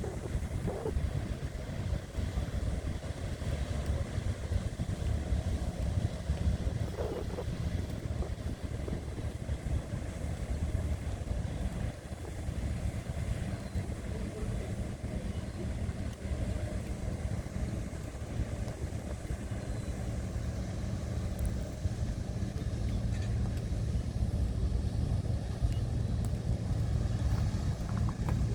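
A ship's engine droning low and steady, a little louder near the end.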